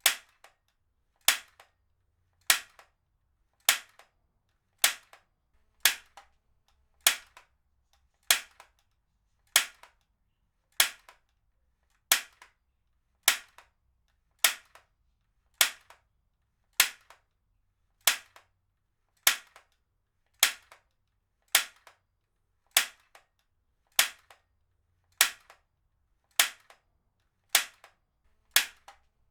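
Heavy-duty stapler being fired again and again: a sharp snap about every 1.2 seconds in a steady rhythm, each with a faint click just after.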